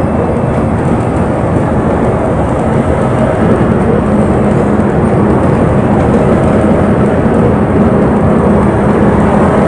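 Inside a moving bus: steady engine drone and road rumble, the engine hum growing a little stronger about four seconds in.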